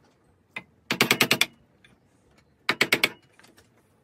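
Flat chisel paring the end of a turned wooden stool leg held in a vise, taking the corner off to round it over. There are two quick bursts of sharp clicking cuts, one about a second in and one near three seconds in.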